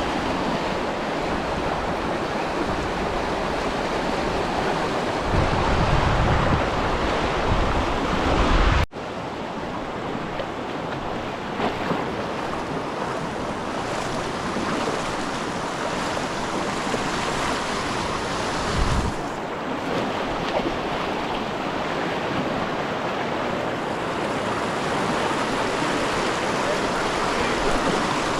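Steady rush of water like surf, with wind buffeting the microphone. The sound breaks off sharply about nine seconds in, then carries on with less wind rumble.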